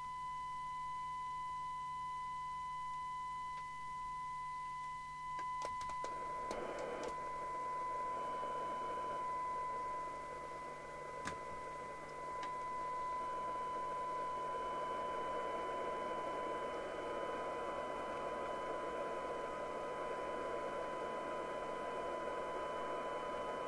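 Steady test tone from a CB radio receiver playing a signal generator's modulated test signal, with faint overtones above it. About six seconds in, a few clicks sound and a rushing hiss rises under the tone and stays, as the receiver's IF alignment is being adjusted; another click comes a few seconds later.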